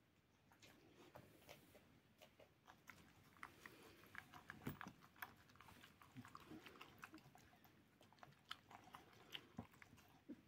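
An American Staffordshire terrier and a cat eating chunky wet food together from one metal bowl: faint, irregular chewing and smacking clicks.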